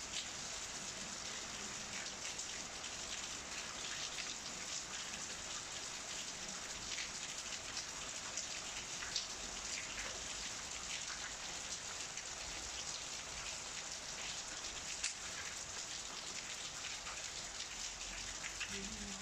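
Steady rain falling: an even hiss dotted with the small taps of individual drops.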